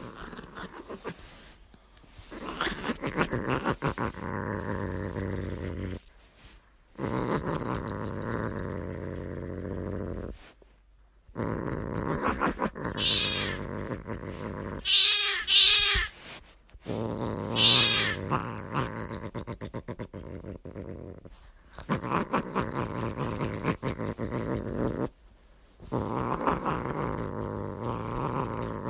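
Domestic cats growling and yowling at chickens, over several short clips that break off abruptly, with a few loud, high cries between about 13 and 18 seconds in.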